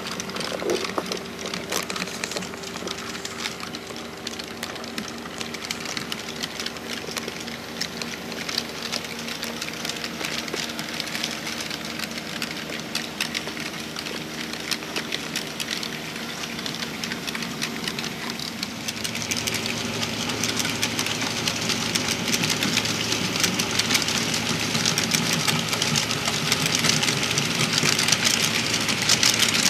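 Diesel locomotive engine sound running steadily, with dense rapid clicking over a low drone. It grows louder and fuller about two-thirds of the way through.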